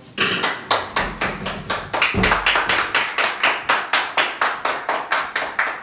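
A rapid, regular series of sharp taps or claps, about four or five a second, starting abruptly and stopping just as abruptly some five and a half seconds later.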